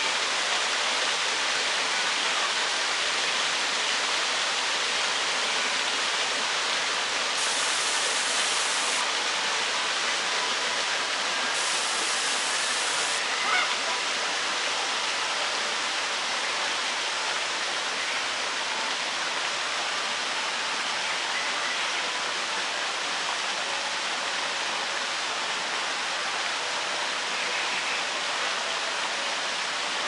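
A steady, even rushing noise, like running water, with one brief tap about 13 to 14 seconds in.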